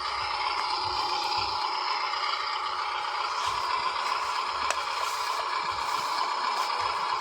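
Small electric motor and gears of an RC toy construction vehicle running steadily, with plastic rattling, clattering and scraping.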